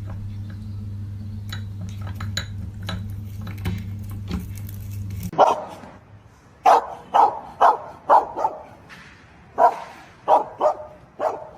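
A steady low hum for about five seconds, then a dog barking, about nine short barks in uneven succession.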